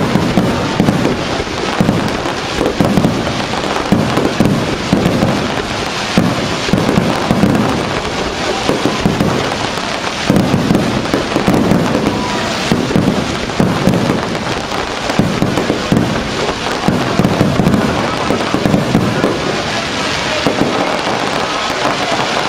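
Aerial fireworks going off in quick succession: a continuous run of booms and crackle with no pause.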